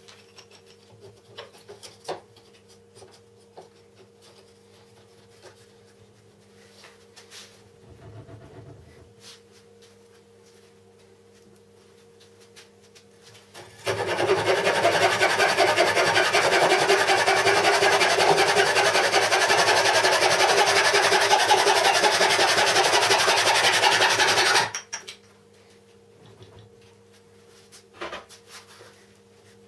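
A fine-toothed hand saw cutting through a small piece of wood held in a clamp, with steady back-and-forth strokes for about ten seconds that start and stop abruptly. Before the sawing there are only a few faint clicks and knocks.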